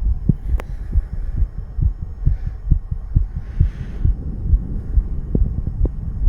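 A man's fast heartbeat, heard as a quick, steady run of low thumps, with a few sharp clicks over it.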